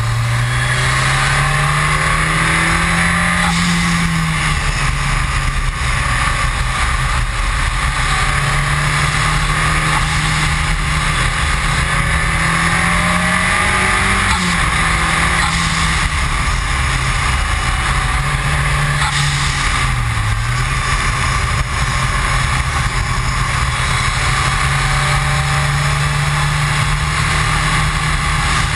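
Ford Escort RS Cosworth's turbocharged 2.0-litre four-cylinder driven hard on track. Its note climbs under acceleration and drops sharply at upshifts about four and fourteen seconds in, dips briefly near twenty seconds, then holds steady. Heavy wind and road noise run under it.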